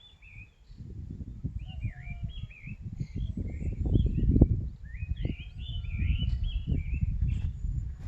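Small birds chirping, with short calls that rise and fall in pitch, repeated through the clip. Under them, gusty wind buffets the microphone with a low rumble, strongest about halfway through.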